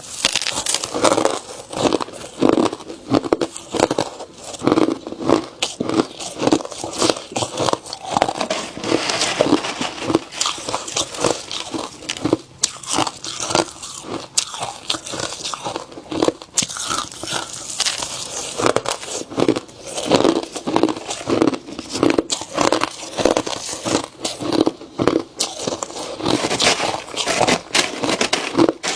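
A person biting and chewing ice: a continuous run of sharp crunches and cracks, one after another, with no pause.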